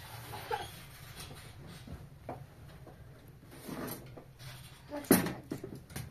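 Scattered light knocks and clatter, with one sharp, louder knock about five seconds in.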